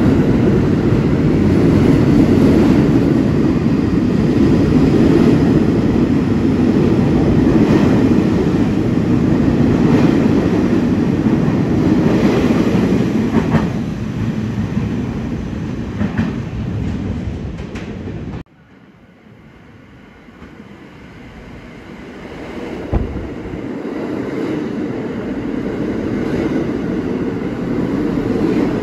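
R46 subway trains running along an underground station platform. Steady, loud rolling noise of a moving train cuts off suddenly about two-thirds through. Another train's noise then builds steadily as it arrives and runs past, with a single knock shortly after the cut.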